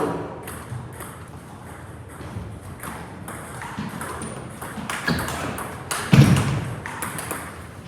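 Table tennis ball clicking off paddles and the table in quick irregular knocks during a rally, with a louder, deeper thud about six seconds in.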